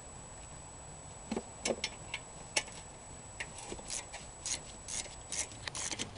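Metal hand tools clicking and clinking on a lawn mower engine, then a ratchet wrench clicking in short back-and-forth strokes about twice a second from about four seconds in.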